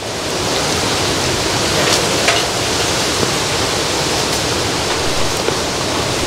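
Strong wind blowing on the microphone: a loud, steady rushing noise with an irregular low rumble.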